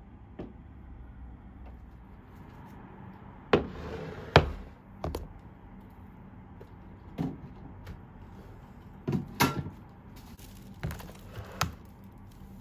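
Food storage containers being handled on a table: a glass snap-lock container and a plastic takeaway box knocking and clacking as they are set down and stacked. There are about nine sharp knocks, the loudest two around four seconds in, over a low steady background hum.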